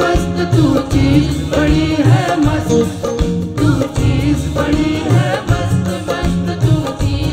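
Live band playing an upbeat Bollywood film song, with a steady pulsing beat from the drums and a wavering melody line over it.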